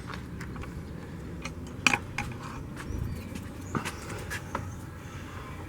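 A few light clicks and clinks of metal parts being handled, over a low steady background rumble.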